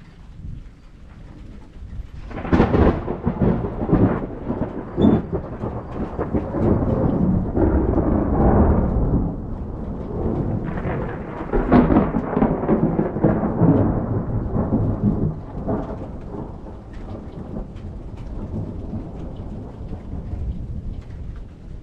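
Thunder from a passing thunderstorm: a sudden crack about two and a half seconds in, then a long rolling rumble that swells again around the middle and slowly dies away toward the end.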